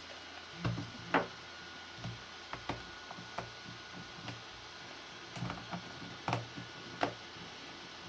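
Irregular plastic clicks and taps from a Yuxin 11x11 cube as its pieces are pried and pulled out by hand while it is taken apart. The sharpest clicks come about a second in and again about seven seconds in.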